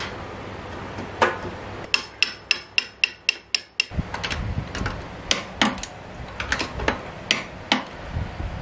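Hammer tapping on steel at a motorcycle's swing arm pivot: an even run of about eight sharp, ringing taps, roughly three a second, then a few scattered knocks.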